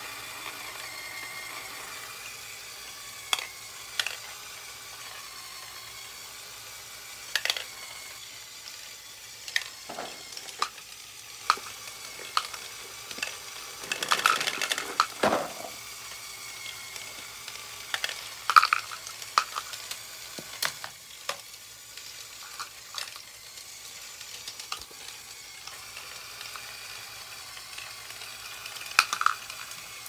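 Lego Great Ball Contraption module running: small plastic balls clicking and clattering as the moving Lego arms lift them and they drop into a plastic bowl. Irregular sharp clicks sound over a steady faint background, with a denser burst of clattering about halfway through.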